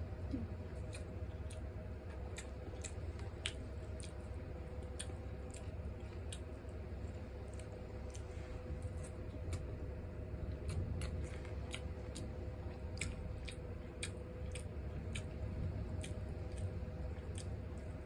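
Close-miked chewing of rice and stew: wet, squishy mouth sounds with frequent short clicks, over a steady low hum.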